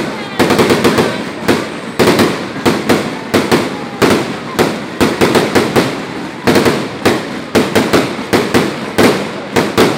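A fireworks display going off in a rapid barrage: sharp bangs about two or three a second, each one trailing off into the next.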